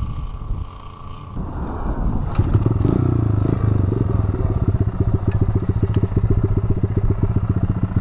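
Motorcycle engine idling with an even low throb, loud close to the handlebar-mounted microphone and coming up strongly about two seconds in. A few sharp clicks and clatters of the camera mount being handled sound over it.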